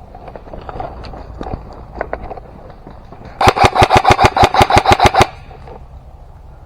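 An airsoft gun firing on full auto: one burst of about sixteen rapid, evenly spaced shots, roughly nine a second, lasting nearly two seconds and starting about halfway in. Before the burst there are scattered soft clicks and rustling.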